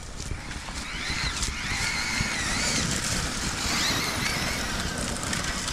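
Brushless electric motor of a Traxxas Maxx Slash RC truck on a 4S battery whining as it drives across grass, the pitch rising and falling with the throttle from about a second in until near the end.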